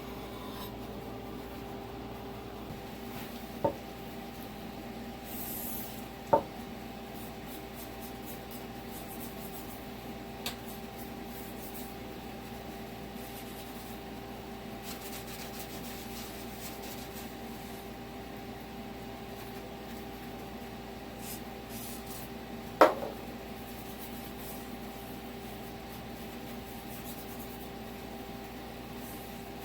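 Steady hum of a running machine, with four isolated sharp knocks, the loudest about two-thirds of the way through.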